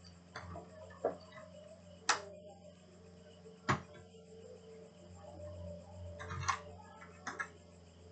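Scattered sharp clicks and knocks of plastic and metal laptop parts being handled and fitted during reassembly, about six in all, the loudest about two seconds in and near four seconds, over a steady low hum.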